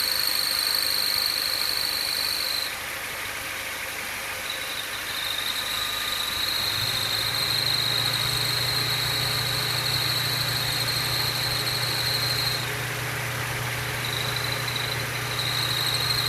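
A steady high-pitched whistle from a car with its engine running; its cause is unknown. The whistle cuts out twice for a second or two and comes back, and a low steady hum joins about seven seconds in.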